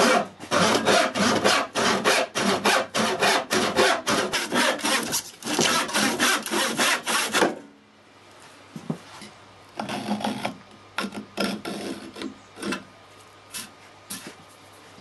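Hand saw cutting through a wooden board, fast regular back-and-forth strokes, about three a second, that stop about seven and a half seconds in. After that come quieter, scattered saw strokes.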